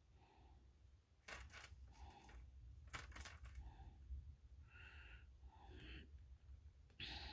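Fingernails picking at the stuck edge of a roll of washi tape, heard faintly: soft scratches and a few sharp little clicks, the clearest about a second in and again about three seconds in.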